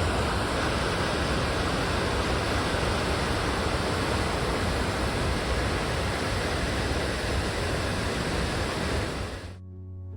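Waterfall rushing, a steady dense wash of falling water that cuts off abruptly near the end, where background music with plucked, piano-like notes takes over.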